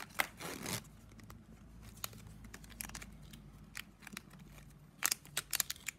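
9 mm plastic strapping band clicking and rustling as a strip is threaded and pulled through a woven piece by hand: scattered sharp clicks, a short scraping swish just under a second in, and another cluster of clicks about five seconds in.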